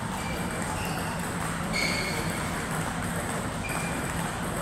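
Table tennis rally: a celluloid-type plastic ball hit back and forth between rubber-faced paddles and bouncing on the table, with a few short high-pitched sounds scattered through it. A low steady hum runs underneath.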